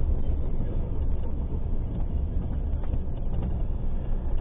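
Steady low rumble of a car driving: engine and road noise with no sudden loud events.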